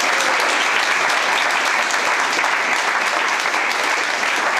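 Audience applauding: many hands clapping in a steady, even patter.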